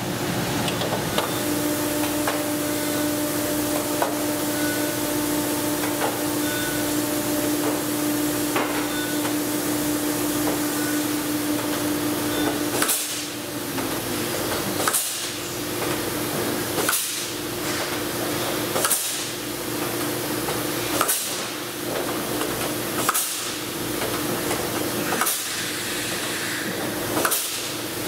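Pneumatic blind-rivet puller setting pulled aluminium rivets in the flaperon skin about once every two seconds, each pull a short sharp snap with a hiss of air. Before the riveting starts, about halfway through, there is only a steady hum.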